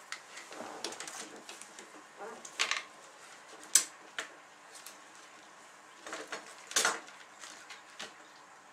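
Hands handling an LED strip and small tools on a tabletop: scattered taps, clicks and rustles, with a sharp click about four seconds in and another near seven seconds.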